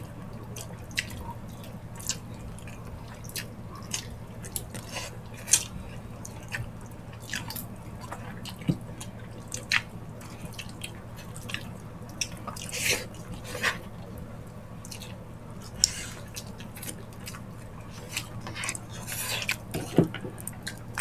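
Wet, sticky eating sounds of people chewing gelatinous ox-foot skin and tendon: irregular smacks and clicks, a few a second, some louder than others.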